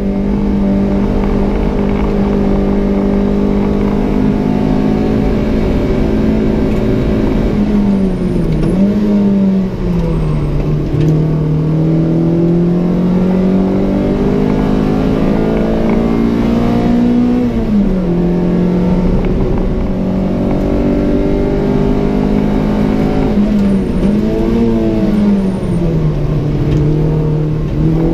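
Peugeot 106 Rallye S1's 1.3-litre 8-valve four-cylinder engine, heard from inside the caged race cabin, running hard on track. About eight seconds in the revs fall with quick throttle blips as the driver brakes and downshifts, then climb steadily under acceleration. After a lift they drop again, with another set of downshift blips about three-quarters of the way through.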